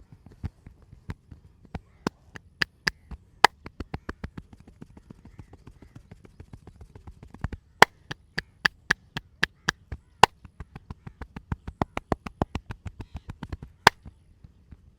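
Massage hands slapping and chopping on the body in quick, even strokes, about four or five a second. A short run comes about two seconds in and a longer one from about eight to fourteen seconds.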